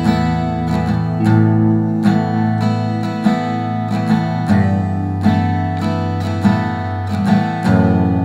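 Background music played on acoustic guitar, with a run of plucked notes over sustained low notes.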